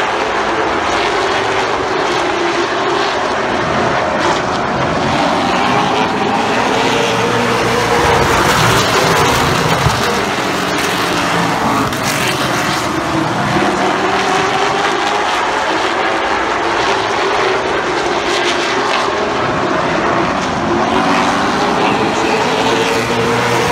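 A field of stock cars racing on a short oval track, their engines running loud and steady, with pitch rising and falling as the cars pass and work through the turns.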